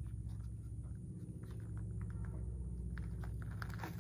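Faint clicks and knocks from an Arisaka rifle being handled, most of them near the end, over a steady low background hum.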